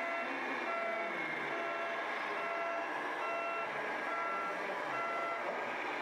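Reversing beepers from RC model trucks' sound modules: several beepers at different pitches overlapping, each beeping about once a second over a steady background noise, and stopping near the end.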